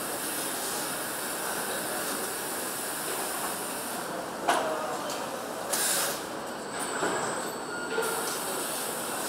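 Engine assembly line factory noise: a steady hiss of machinery and air, broken by a sharp clank about four and a half seconds in and another short burst of noise around six seconds in.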